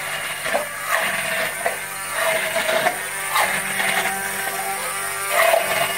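Electric stick blender running in a beaker of thick quark and linseed oil, its motor hum dipping and recovering in pitch every second or two as the thick mixture loads it.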